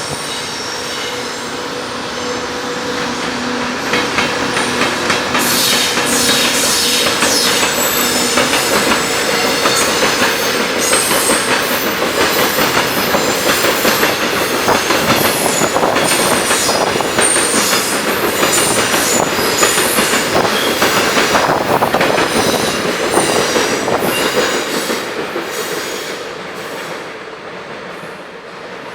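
A JR Freight train, an electric locomotive hauling freight wagons, passing close by. The wheels clatter over the rails with many brief high squeals. It grows loud about four seconds in, holds, and fades near the end.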